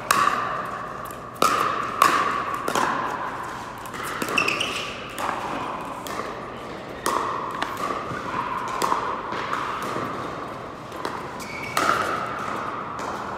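Pickleball paddles striking a hard plastic ball: sharp pops at irregular spacing, each with a short ringing tail in a large hall.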